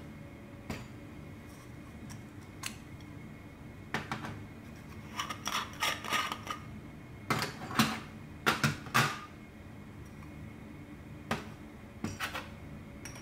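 Light metallic clicks, taps and clinks of a thin metal pot stand and a brass Trangia alcohol burner being handled and set on a metal tabletop. The clinks come in a busier run with short ringing in the middle, with isolated taps before and after.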